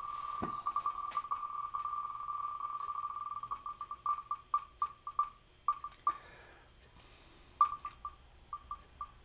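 Wheel of Names online spinner's tick sound: clicks so fast at first that they blur into a steady tone, then thinning into separate ticks that come slower and slower as the wheel winds down, with a short pause near the end before a few more ticks.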